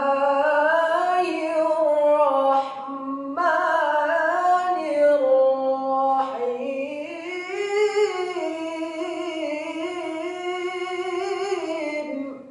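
A man chanting a Qur'anic recitation solo and unaccompanied, in three long, ornamented phrases with short breaths between them.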